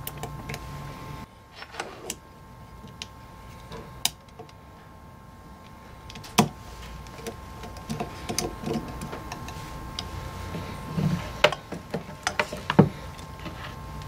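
Scattered clicks and light knocks of new carbon brushes being fitted into an old Foredom Series H flex-shaft motor and a screwdriver working on its metal housing, over a steady faint hum.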